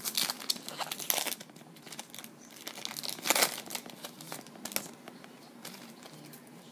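Baseball card pack wrapper crinkling and tearing as it is opened, in crackly bursts during the first second or so and again about three seconds in.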